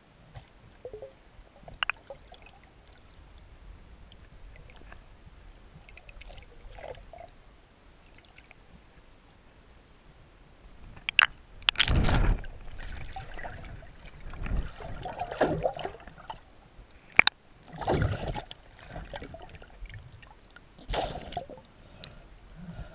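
Underwater sound picked up through a camera housing: faint ticks at first, then from about halfway a series of loud, muffled bumps and gurgling rushes of water against the camera.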